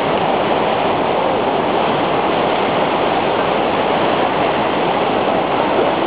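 Waterfall pouring down a sloping rock face into a pool: a steady, unbroken rush of water.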